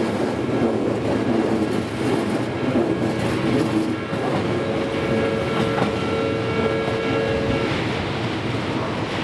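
Odakyu electric train passing at a level crossing: a steady running noise, with several high steady tones that stop together about three quarters of the way through.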